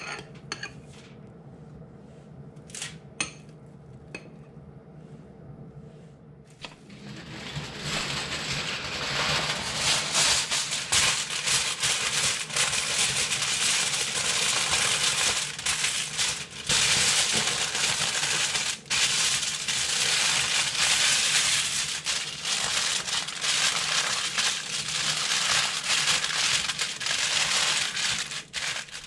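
Aluminium foil crinkling and crackling as it is folded and crimped over a pile of vegetables into a packet. The crinkling is continuous from about seven seconds in. Before that there are only a few light clicks.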